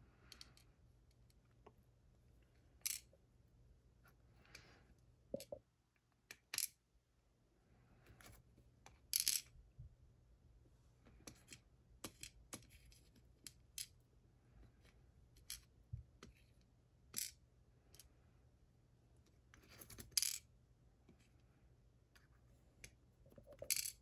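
Small metal lock parts from a disassembled Mottura Viper cylinder clicking and clinking as they are handled and set into a plastic pin tray. The clicks are short, sharp and irregular, a dozen or so, with the loudest about a third of the way in and twice near the end.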